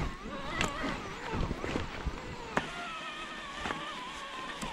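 Electric mountain bike mid-drive motors pulling hard at low cadence in high assistance: first a Panasonic GX0 whining with a wavering pitch amid knocks from the trail, then from about two and a half seconds in a Specialized SL 1.1 with a steadier whine.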